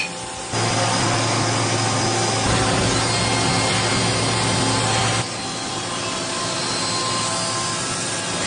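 CNC machine cutting, with the spindle's steady hum under a loud rasping noise. After about five seconds it drops to a quieter running sound.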